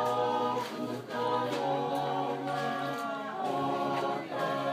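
A group of voices singing unaccompanied in harmony, with long held notes and short breaks between phrases.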